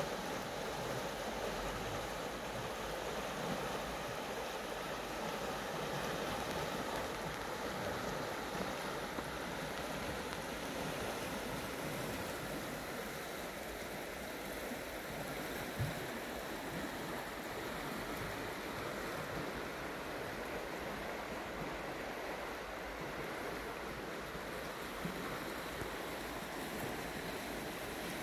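Shallow river flowing steadily: an even rush and ripple of water. One soft low thump comes about halfway through.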